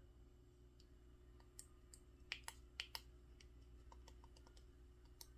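Near silence over a low steady hum, broken by a handful of faint clicks, most of them between about two and three seconds in: small parts being handled while an ESC programming card is connected to an RC car's speed controller.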